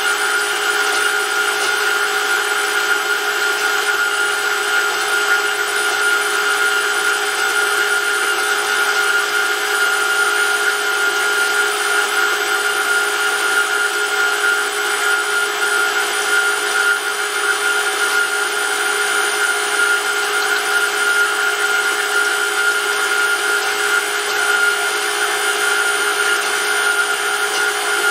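Brushless electric motor driving a hot-oil pump test rig, running at a steady speed with an even whine and constant hum. The pump is circulating motorsport oil heated to about 84 degrees.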